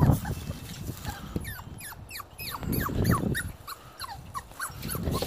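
A puppy whimpering: a string of short, high whines that each fall in pitch, over bursts of low rumbling noise.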